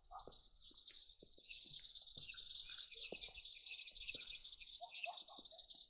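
Faint, steady high-pitched chirring of crickets in a night chorus, with scattered short lower calls and a few soft clicks.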